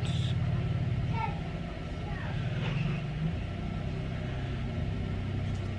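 A steady low hum with several pitches stacked together, running throughout; a few faint high gliding sounds come through about two to three seconds in.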